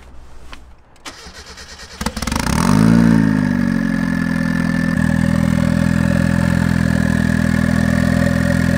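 Turbocharged Mazda Miata four-cylinder engine with a Garrett GT2860RS turbo and an open up-pipe exiting through the hood: the starter cranks for about a second, the engine catches about two seconds in, flares up in revs and drops back, then settles into a steady, loud idle.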